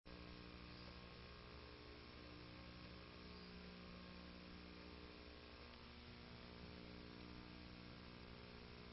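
Near silence: a faint steady mains hum with hiss from the videotape playback.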